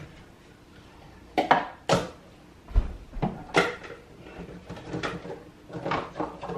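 Kitchen dishes and a cupboard clattering: a series of sharp knocks and clinks as a small bowl is got out.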